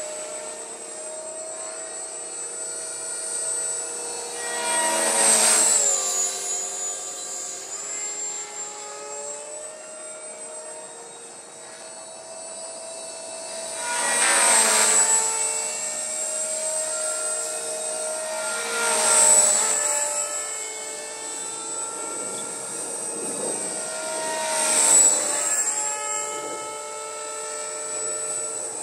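Walkera V450D03 electric RC helicopter in flight: the steady high whine of its motor and rotors. The sound swells four times as it passes close, and the pitch falls after each pass.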